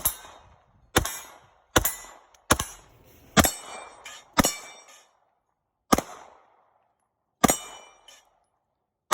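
Pistol shots fired singly and deliberately, eight in all, roughly one a second with longer gaps toward the end. Several are followed by the ringing clang of a struck steel target.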